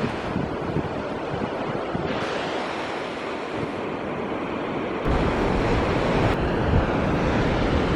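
Sea waves breaking and washing up on a sandy beach, with wind buffeting the microphone; the low rumble gets heavier suddenly about five seconds in.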